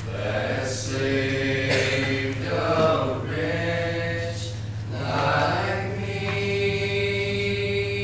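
A small group of young male voices singing together without words being spoken, holding long sustained notes, with one long held note starting a bit past halfway. A steady low hum runs underneath.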